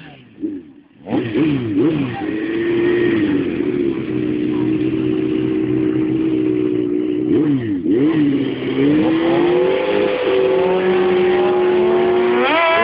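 Sport motorcycle engine revved hard and held at high revs for several seconds at a time. It comes up about a second in and has a few quick drops and climbs in revs.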